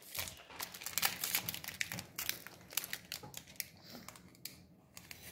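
Foil wrapper of a Pokémon TCG Astral Radiance booster pack crinkling as it is opened by hand: a quick run of small crackles that thins out near the end.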